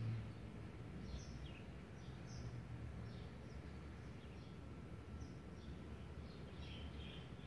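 Faint small-bird chirps, short high notes scattered through and coming thicker near the end, over a steady low background hum.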